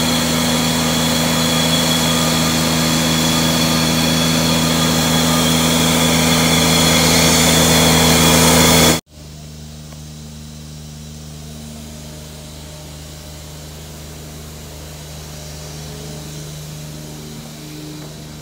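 Truck-mounted carpet-cleaning unit in a van running steadily: a loud engine and vacuum-blower drone with a high whine over it. About halfway through it drops abruptly to a much quieter steady drone of the same kind.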